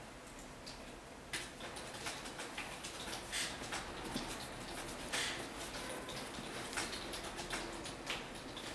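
Hands handling an Air Jordan 13 sneaker: irregular rustles and light taps as the shoe is turned and its upper and laces are touched, starting about a second in.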